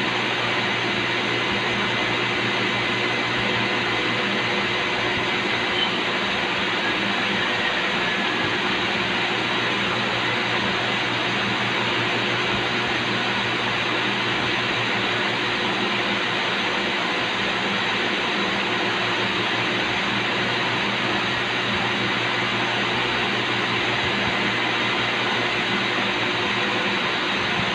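Steady running noise of a Doosan CNC vertical machining center: an even hiss with a faint low hum and a few thin steady tones, and no cutting.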